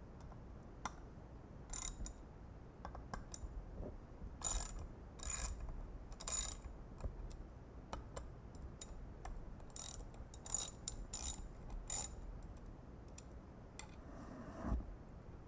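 Allen wrenches working the 5 mm Allen screws on a Peloton spin bike's flywheel axle. A dozen or so short, irregular clicking bursts with quiet gaps between them.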